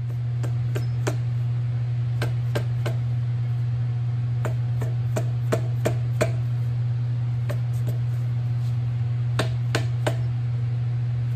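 Dead blow mallet tapping the cast hand wheel of a Champion Blower & Forge 20-inch camel back drill press to drive it off its shaft: sharp knocks in short runs of two to six, about three a second. A steady low hum runs underneath.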